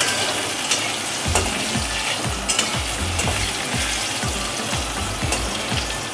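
Drumstick (moringa) pieces sizzling in hot mustard oil in a metal kadai, with a metal spatula scraping and clinking against the pan now and then as they are stirred.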